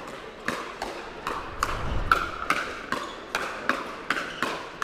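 Pickleball paddles striking the plastic ball in a fast rally at the net: a quick run of sharp pops, about three a second, trading volleys in a hands battle.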